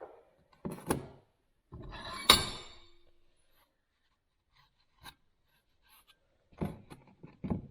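Workshop handling sounds of metal vise parts on a bench: a knock, a short scraping clatter with a sharp clack about two seconds in, faint ticks, then two dull knocks near the end, as the Acme-threaded screw of a bench vise is handled for greasing.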